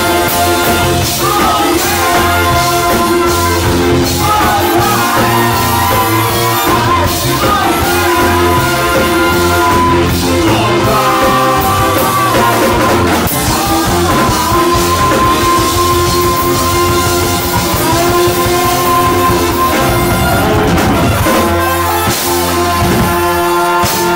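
Live ska band playing: trombone and saxophone horn lines over electric guitar, bass and drum kit, with singing.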